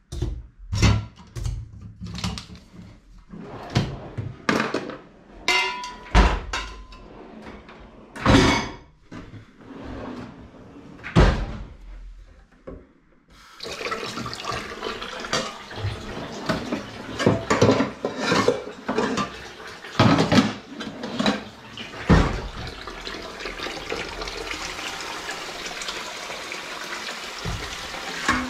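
Dishes, pots and utensils knocking and clattering as they are handled and put away. About halfway through a kitchen tap is turned on and runs steadily into the sink, with dishes clinking under the running water.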